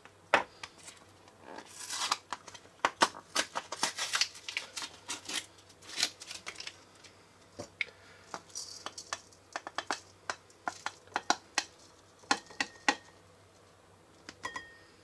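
A run of short clicks, scrapes and taps as a container of grated Parmesan cheese is opened and the cheese poured out.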